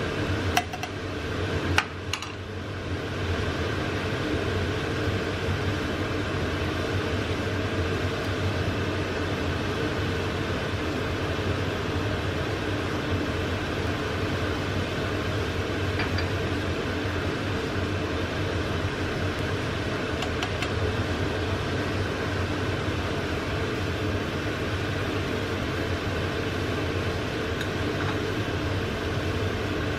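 Beef, onions and sauce simmering in an aluminium pan, a steady bubbling hiss over a low steady hum. There are a few sharp clicks in the first two seconds.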